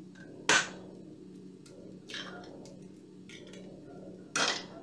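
An egg cracked on the rim of a stainless steel bowl: one sharp knock about half a second in, then softer shell sounds, and a sharper clatter near the end, with a faint steady hum underneath.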